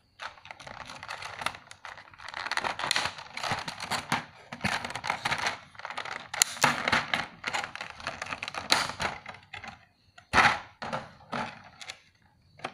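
Thin clear plastic blister trays being handled and pulled open, crackling and crinkling with many small clicks of plastic. A single louder knock about ten seconds in.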